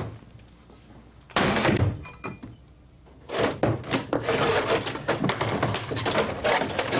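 Broken television screen glass: a sudden crash about a second and a half in, then a long stretch of crunching and clattering shards as a skateboard is pulled out through the smashed screen.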